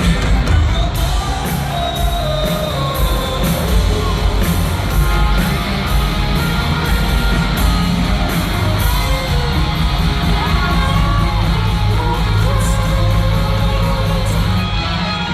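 A rock band playing live and loud: singing and yells over guitars, bass and a drum beat with steady cymbal hits.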